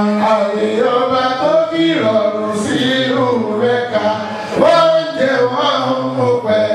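A man singing a chant-like melody, holding long notes.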